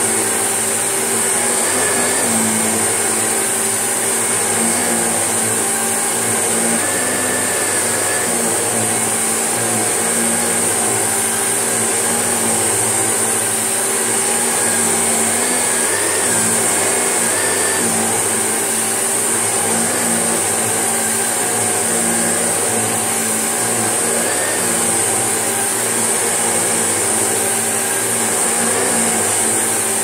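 Shark upright vacuum cleaner running steadily with a high-pitched whine as it is pushed back and forth over a rug.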